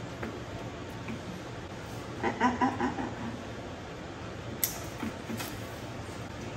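Dog nail clippers snipping through a toenail: one sharp click about two-thirds of the way in, followed by two softer clicks. Earlier, a brief voice-like sound in a few quick pulses is the loudest thing heard.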